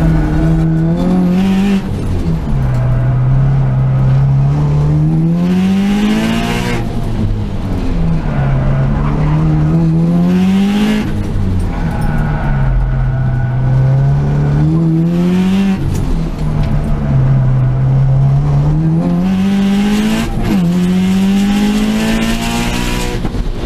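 Subaru Impreza WRX's turbocharged flat-four engine heard from inside the cabin at racing speed, its note climbing in pitch about five times and dropping back in between. The Nankang AR-1 semi-slick tyres squeal through the corners, tyres that the driver says are not gripping.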